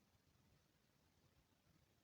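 Near silence: faint low background hiss.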